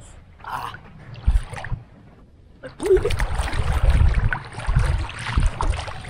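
Seawater sloshing and splashing close around the microphone of a person wading chest-deep in the sea. It is faint at first and turns loud and continuous a little under three seconds in.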